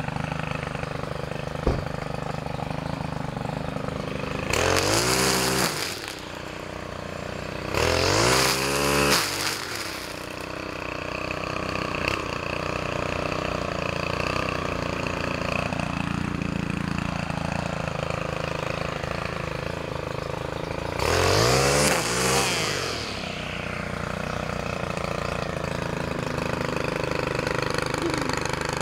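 Stihl KM 90 R KombiMotor's small 4-MIX engine running a string trimmer, idling between three bursts of full throttle: a few seconds in, again shortly after, and again about two-thirds through. Each time the pitch climbs quickly and then drops back to idle.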